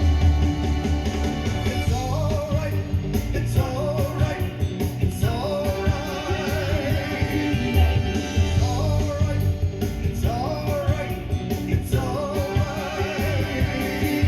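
Background rock-and-roll song with guitar and a singer, the sung lines wavering with vibrato and starting afresh every three seconds or so over a steady beat and bass.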